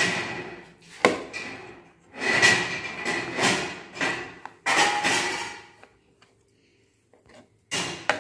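Kitchen knife cutting through a soft cake and scraping and knocking on the plate beneath, in several strokes with a quiet pause late on.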